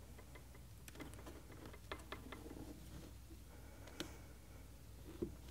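Faint sliding and rubbing of a kamishibaï picture card being drawn out of its wooden butaï frame, with small scattered clicks and a sharper tick about four seconds in.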